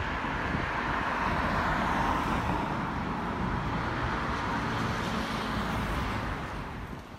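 Road traffic on a busy urban road: tyre and engine noise of passing vehicles, swelling as a car goes by about two seconds in, then easing off and dropping away near the end.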